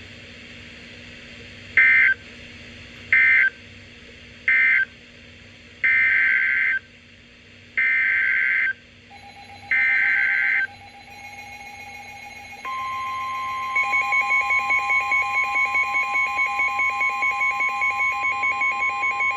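Emergency Alert System signalling between two broadcast warnings: three short warbling SAME data bursts, one second apart, mark the end of the previous message, then three longer bursts form the header of the next alert. A steady alert tone comes in about halfway through, joined by a second, higher tone a few seconds later, the two sounding together with a slight pulsing.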